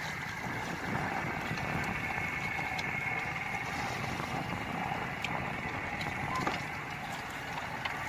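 Steady background noise aboard a small fishing boat at sea, with a faint steady whine and a few light knocks.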